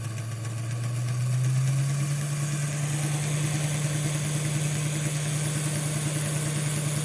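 The small electric motor and gear train of a Doodlebug model railcar, running on test. Its hum rises in pitch over the first couple of seconds as the power is turned up, then holds steady. The gears, repaired with CA glue and bicarb soda, run without clunking.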